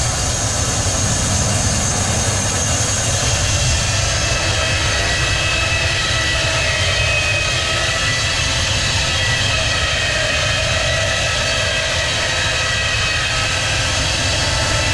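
Sawmill machinery running steadily: a multi-blade saw line with several steady whining tones over a low rumble.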